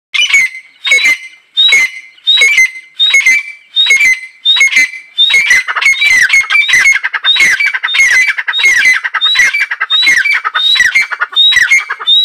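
Female grey francolin (teetar) calling: a steady run of repeated calls, about three every two seconds. Each call is a short high note followed by lower, falling notes.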